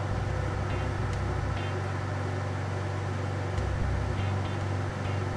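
Steady low hum of a laminar flow bench's blower fan, with a few faint light ticks.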